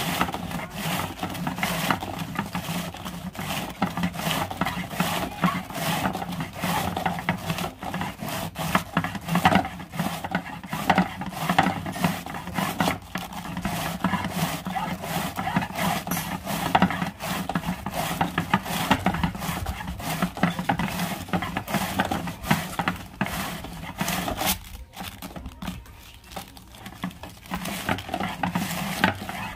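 Cabbage being shredded on a kraut board: the sliding box is pushed back and forth over the steel blades in a rapid run of scraping, slicing strokes, with a brief lull about 25 seconds in.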